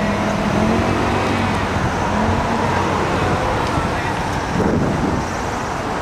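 City street traffic: a steady hum of cars and engines on the road, with passers-by's voices mixed in.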